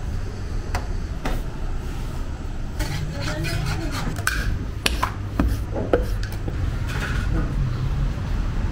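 Working bakery sounds: scattered sharp clicks and knocks over a steady low hum, with faint voices now and then.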